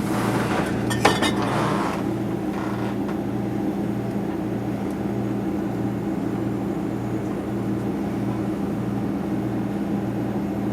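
A steady low mechanical hum with a slow, even pulse, and a sharp glass clink about a second in amid some brief clatter.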